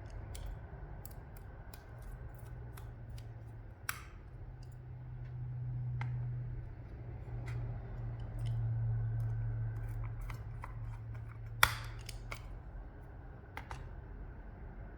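Small metallic clicks and ticks of screws being handled and driven into a laptop's drive caddy by hand. There are two louder knocks, one about four seconds in and one near twelve seconds, over a low hum that swells twice.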